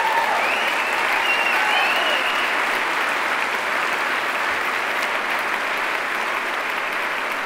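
A large audience applauding steadily, with a few voices cheering over the clapping in the first couple of seconds.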